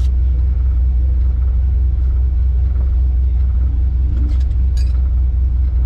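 Competition 4x4 winch truck's engine idling with a steady low rumble, heard from inside the cab. A few short clicks come about four and a half seconds in.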